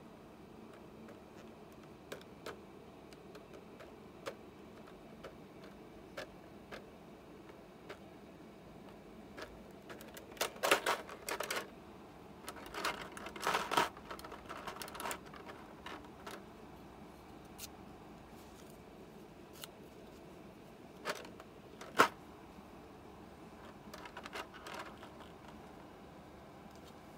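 Clear plastic blister tray crackling and clicking as an action figure and its parts are worked out of it: scattered light clicks, a flurry of crackling around the middle, and one sharp snap later on.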